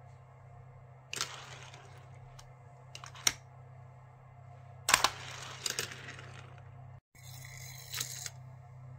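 Die-cast toy cars clacking against and rolling along a plastic toy track. There are several sharp plastic knocks, the loudest about five seconds in, and most are followed by about a second of rattling roll, over a steady low hum.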